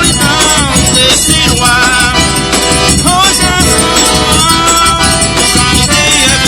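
Live forró arrasta-pé music playing at a fast, steady beat.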